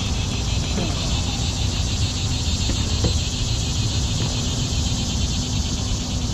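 A steady chorus of summer insects with a fast, even pulse, over a constant low rumble.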